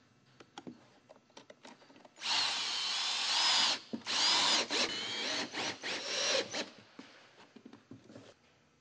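Cordless drill driving a half-inch stitch screw through stone-coated chimney flashing: a loud whining run of about a second and a half, starting about two seconds in, then after a brief pause a shorter run and several short bursts.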